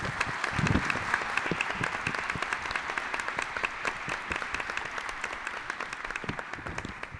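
Congregation applauding, many hands clapping at once, dying away near the end.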